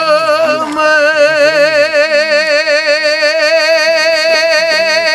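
A single voice chanting a Hawaiian oli, holding one long note with a wide, wavering vibrato.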